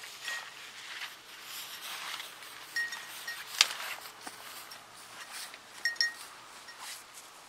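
Dry standing corn stalks rustling as hunters and a bird dog push through them, with a few short high clinks and one sharp snap about three and a half seconds in.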